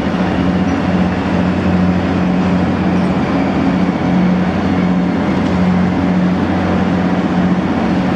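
Steady low drone of a moored Boeing Jetfoil's machinery running, a loud hum with a noisy rush over it.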